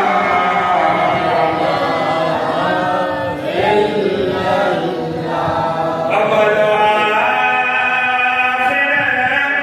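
Male voice chanting a hamd, a devotional song in praise of God, unaccompanied by instruments, in long held notes that slide between pitches.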